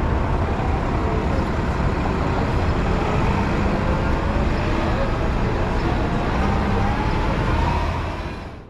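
City street traffic: an articulated city bus driving off through an intersection with its engine running, among passing cars. The sound fades out near the end.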